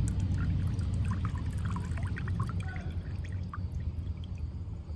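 A thin stream of permethrin concentrate pouring from a measuring bottle into a bucket of water, trickling and dripping, tailing off near the end, over a low steady rumble.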